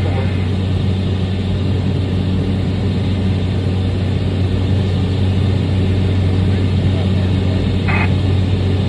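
Steady drone of a Cessna 208 Caravan's Pratt & Whitney PT6A turboprop engine and propeller in flight, heard inside the cockpit as a strong low hum. A brief higher-pitched blip comes about eight seconds in.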